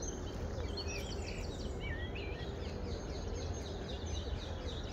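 Many small birds chirping and singing at once, over a steady low rumble of background noise.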